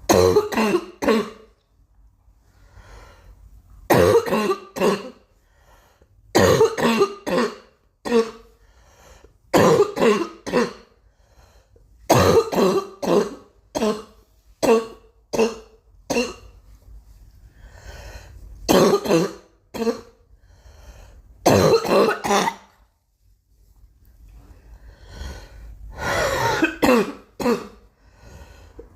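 A girl coughing in repeated fits of two to four coughs each, about ten fits with short pauses between them.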